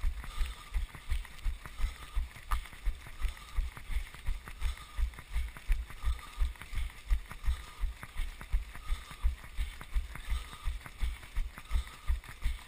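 A runner's footfalls jolting a body-worn GoPro as dull low thumps, about three a second at race pace, with the patter of a pack of other runners' steps around.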